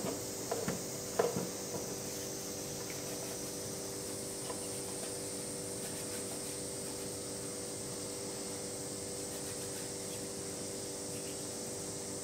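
Buckwheat soba dough pressed and kneaded by hand in a lacquered kneading bowl: a few soft thumps in the first two seconds, then only a steady background hiss and hum.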